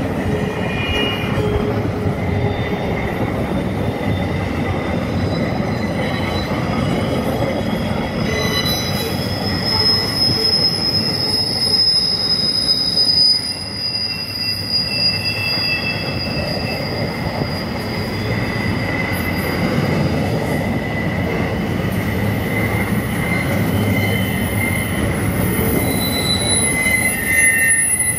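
Freight train's steel wheels squealing against the rail as the cars round a curve, over a steady rumble of wheels rolling on track. Several high squeals at different pitches hold for seconds at a time and come and go as empty intermodal well cars and then boxcars pass.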